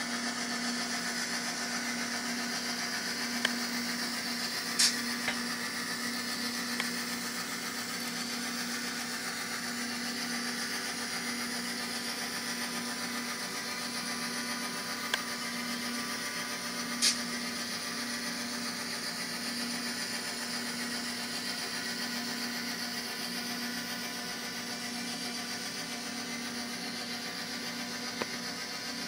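Simulated diesel prime mover sound of an F7 locomotive played by a Soundtraxx Tsunami Micro sound decoder through the N scale model's tiny speaker, running steadily with a constant low hum. A few short sharp clicks stand out over it, the loudest about five seconds in and again near seventeen seconds.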